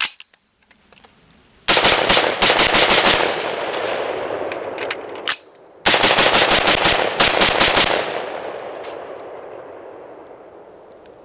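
AR-15 rifle rapid-fired in semi-auto: a quick string of shots, a lone shot, then a second quick string, each string about a second and a half long, with echo trailing off afterwards.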